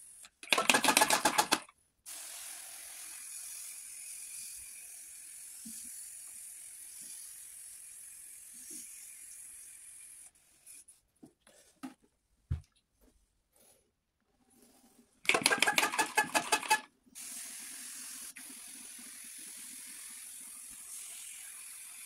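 Spray bottle of coil cleaner sprayed onto an air conditioner's finned coil in two short, sputtering bursts, one about a second in and another about fifteen seconds in. A steady faint hiss follows each burst and lasts several seconds.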